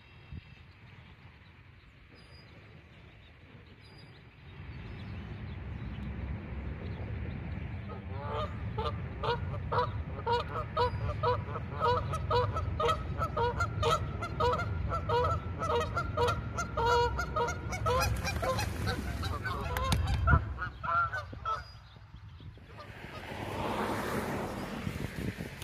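Canada geese honking over and over in flight, about two honks a second for some twelve seconds, with wind rumbling on the microphone. Near the end a rushing noise rises as the birds splash down onto the water.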